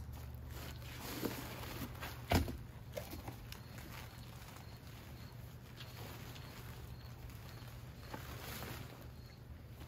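Plastic tarp rustling and crinkling as it is pulled out of a cardboard box and shaken open, with a few short knocks in the first few seconds, the sharpest about two and a half seconds in, over a steady low hum.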